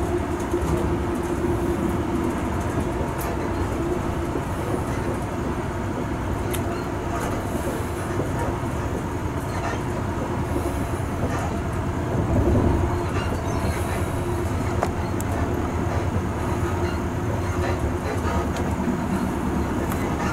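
Train running steadily on the track, a continuous rumble with a steady hum and a brief swell in loudness about twelve seconds in.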